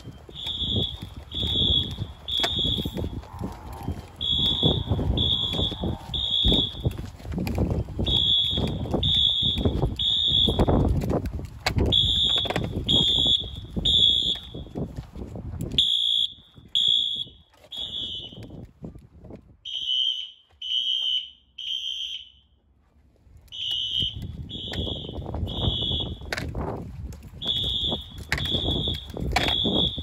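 Wheelock Exceeder fire alarm horn sounding the temporal-3 evacuation pattern: three high beeps about a second apart, then a pause, repeating every four seconds or so. Scuffing and rumble from walking on pavement sit beneath the horn, quieter for a few seconds in the middle.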